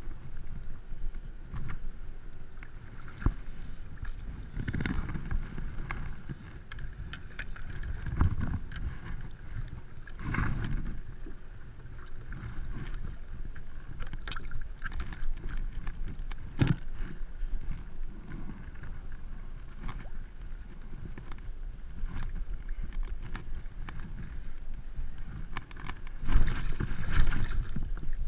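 Water lapping and sloshing against a Hobie kayak's hull, with wind on the microphone and scattered short knocks and rustles from gear being handled on board; it gets louder near the end.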